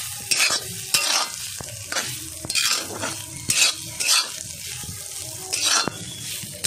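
Metal spatula scraping and turning cauliflower and carrot pieces in a hot karahi, about two strokes a second over a steady sizzle of frying.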